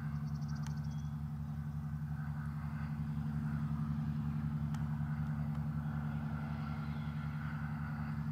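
Tecnam P2012 Traveller's twin six-cylinder piston engines and propellers running steadily as the aircraft taxis, a low drone with an even, regular throb.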